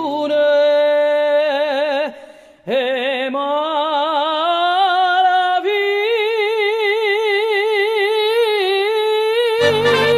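A woman singing a Neapolitan song with wide vibrato, holding long notes almost unaccompanied: one sustained note, a short breath about two seconds in, then a long note that climbs in pitch and is held for about seven seconds. Accordion chords come back in near the end.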